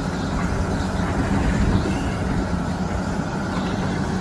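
A steady low motor hum with an even rushing hiss over it.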